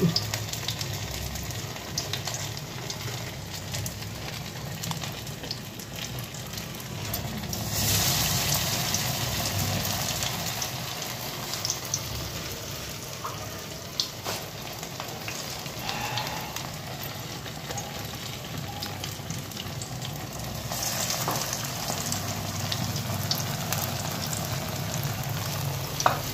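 Potato-vegetable tikkis coated in cornflour batter deep-frying in a kadai of hot oil: a steady sizzle full of fine crackles. The sizzle swells louder about eight seconds in and again around twenty-one seconds, with a couple of sharp clicks in between.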